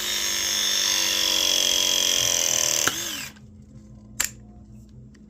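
Ridgid ProPress tool's electric motor running as it presses a pipe fitting, its whine slowly dropping in pitch under load; it stops with a click about three seconds in. A single sharp click follows about a second later.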